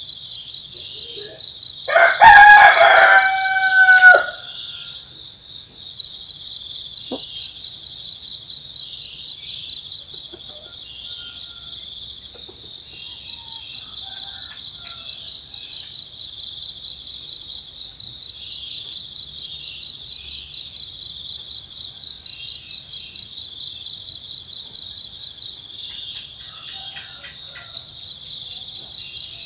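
Field crickets chirping steadily in a fast, even pulsing trill. A rooster crows once about two seconds in, louder than the crickets.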